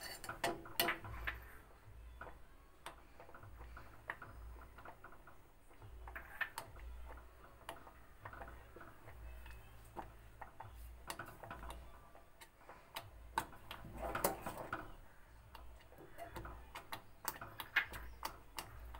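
Steel spoon clinking against a steel saucepan while stirring thickening ragi porridge: a stream of light, irregular clicks.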